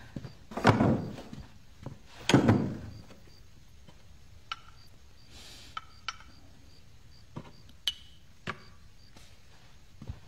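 Handling of wooden chests and small objects: two heavy dull thuds within the first three seconds, then scattered light knocks and one sharp clink.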